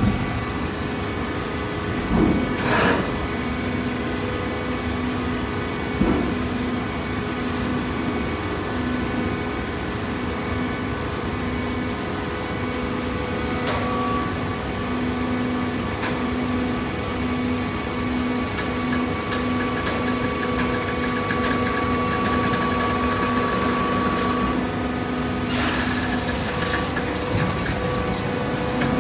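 Auto-tying baler machinery running: a steady mechanical hum with a pulsing low tone. A few knocks come in the first seconds, a thin whine is held through the middle, and two brief hissing bursts come about three seconds in and near the end.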